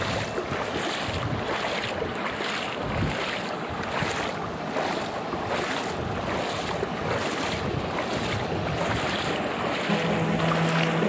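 Rushing water of a stream and waterfall, a steady loud noise with wind buffeting the microphone.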